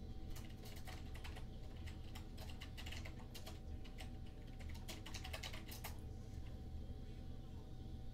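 Typing on a computer keyboard: quick runs of key clicks that thin out and stop about six seconds in, over a steady low hum.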